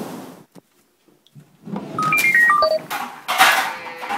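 Waves washing on the beach fade out, and after a moment's silence comes a quick run of electronic beeps stepping down in pitch, then a short burst of hiss.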